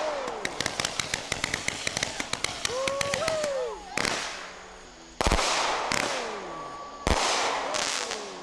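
Aerial fireworks display: a rapid run of crackling pops for the first few seconds, then three loud shell bursts, each trailing off in a hiss. A person's short exclamation sounds in between.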